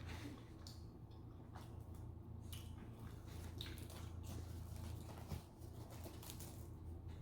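A person chewing soft food close to the microphone: quiet wet, squishy mouth sounds with scattered small clicks, over a low steady hum.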